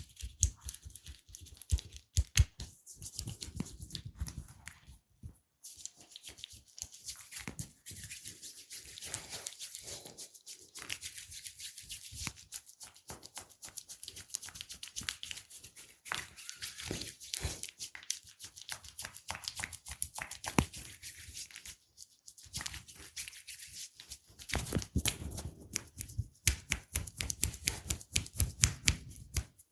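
Hands working over skin and hair in a close-miked massage: rubbing and scratching with many quick sharp taps and clicks, and a run of louder, deeper taps near the end.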